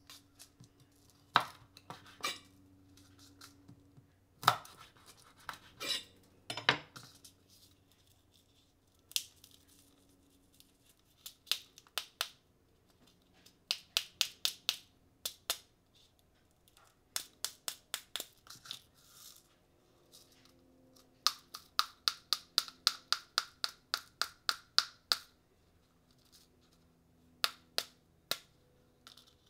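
Dried red chili peppers being crushed and broken open by hand on a wooden cutting board. There are a few sharp snaps and crackles of the brittle pods in the first seven seconds, then runs of quick, light ticks as the seeds are shaken out onto the board.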